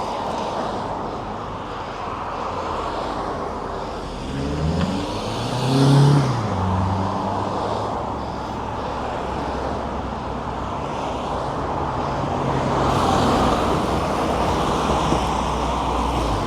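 Steady city road traffic noise, with one motor vehicle's engine rising in pitch as it accelerates about five seconds in, the loudest moment.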